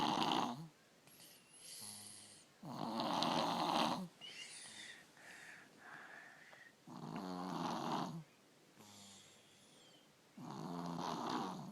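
A three-year-old child snoring: four harsh, rasping snores about every three and a half to four seconds, with quieter breathing between them. The snoring is made worse by strep throat.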